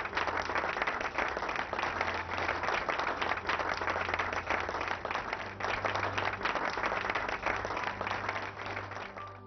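Studio audience applauding, steady and dense, dying away near the end.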